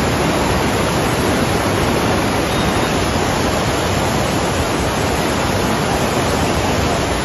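Floodwater rushing fast over a road: a loud, steady rush of water.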